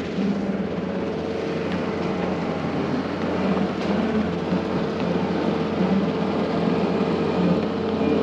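Diesel engine of a piece of earthmoving equipment, an excavator or skid steer, running steadily under work: a constant engine drone that grows slightly louder toward the end.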